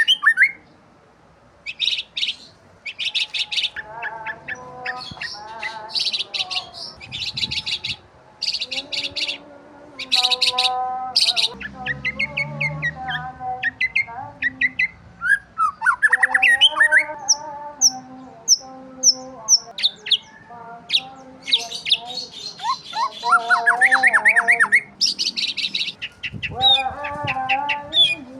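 Birds chirping and calling: quick runs of high chirps mixed with lower, wavering whistled calls, one after another with short gaps.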